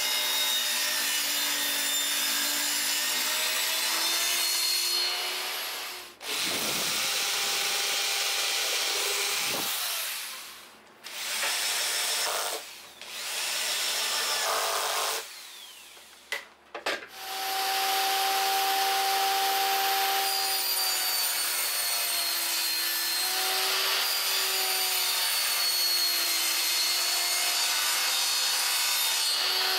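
Power tools working plywood: a table saw running and cutting sheet stock with a steady motor whine, and a cordless drill boring holes, with several sudden breaks between shots.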